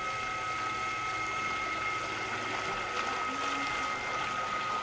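Radio-controlled model hydrofoil boat's outboard motor running with a steady high-pitched whine, over the hiss of water and spray from the hull.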